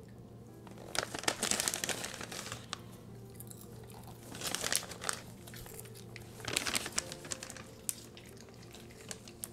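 Brussels griffons chewing crunchy freeze-dried fish treats, heard as three short bouts of crackly crunching.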